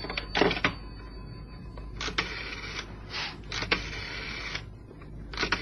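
Telephone being dialled: several short, whirring rattles of the dial about a second apart.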